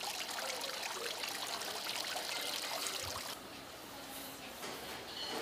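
Water from a tiered shell-bowl courtyard fountain splashing and trickling into its basin. It cuts off abruptly about three seconds in, leaving quieter background.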